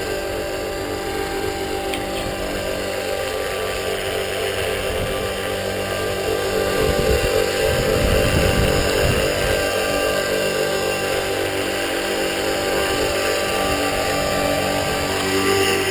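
Align T-Rex 450 Pro electric RC helicopter in an EC135 scale fuselage hovering low: a steady whine from the brushless motor and gears over the chop of the spinning rotor blades, which grows louder for a few seconds around the middle.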